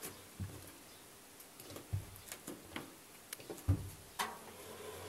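Scattered light clicks and a few soft knocks as a hand turns and handles the stainless steel drum of a 1988 Wiatka front-loading washing machine.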